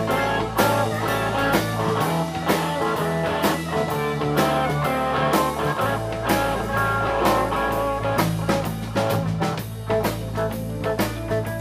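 Live blues band playing an instrumental passage: electric guitar, bass guitar and drum kit, with a harmonica played into the vocal microphone.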